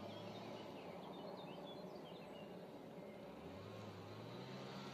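Low steady engine hum that rises in pitch about three and a half seconds in, with a few short bird chirps in the first half.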